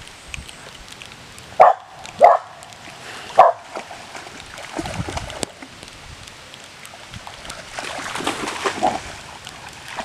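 A dog barks three short, loud barks about a second apart, over the steady patter of rain on water.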